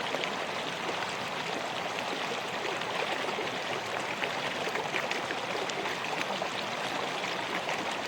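River water flowing steadily, a continuous rushing with small splashes and gurgles.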